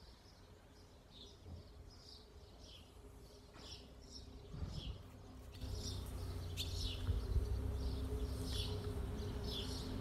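Small birds chirping over and over. About halfway through, a low steady rumble with a faint hum comes in and stays, louder than the birds.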